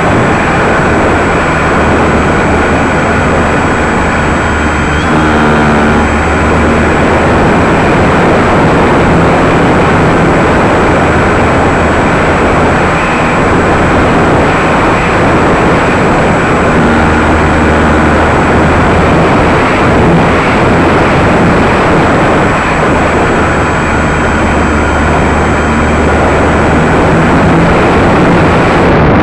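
Electric motor and propeller of a radio-controlled model airplane running in flight, its pitch shifting as the plane passes and changes throttle, over a steady loud rush of noise.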